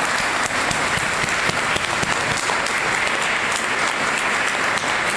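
A congregation applauding: steady, dense clapping from many hands.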